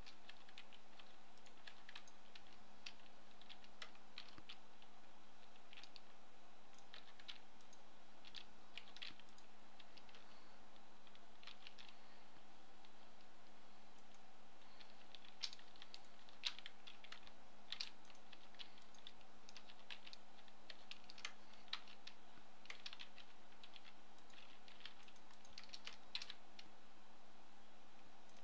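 Faint, irregular computer keyboard keystrokes, scattered single clicks with a few louder ones, over a steady low electrical hum.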